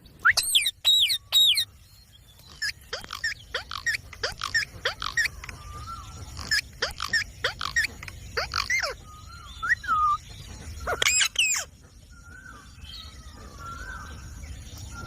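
Ringneck parrot giving a string of short, shrill calls in quick clusters, many sweeping sharply down in pitch, with a few softer, lower whistles in the second half.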